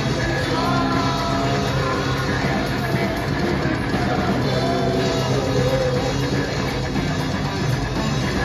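A rock band playing live: electric guitar, bass guitar and drums, with a singer's voice over them.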